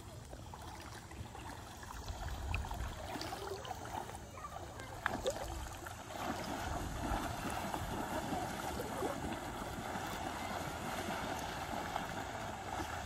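Lake water lapping and sloshing close by, a steady watery wash. A low wind rumble on the microphone comes through in the first half.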